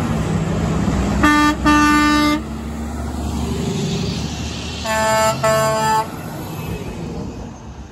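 Semi trucks sounding their air horns over traffic rumble: two short blasts of the International 8600's single Grover 1680 air horn, then a few seconds later two higher-pitched blasts from the Peterbilt 389's pair of Hadley H00871C air horns.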